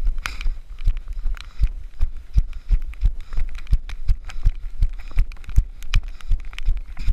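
A runner's footfalls on a dirt track jolting a body-worn action camera: an even rhythm of dull thuds, about three a second, over a low rumble.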